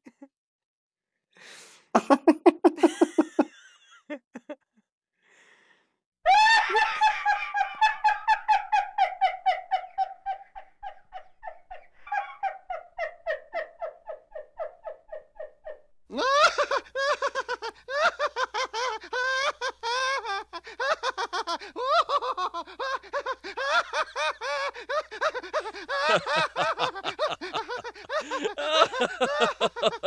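Human laughter: several separate bouts one after another. A brief low laugh comes first, then a long high-pitched laugh in rapid pulses. About halfway in, a denser, more continuous laugh starts over a faint low hum.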